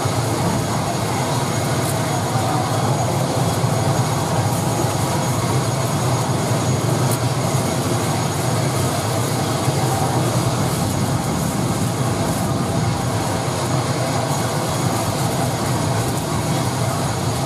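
Steady drone of a Wings Air ATR 72 turboprop's engine running on the apron, an even hum that holds without a break.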